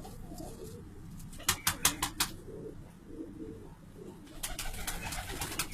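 Domestic pigeons cooing, a low, steady warble. A quick series of sharp clicks comes about a second and a half in, and another run of clicks starts near the end; these clicks are the loudest sounds.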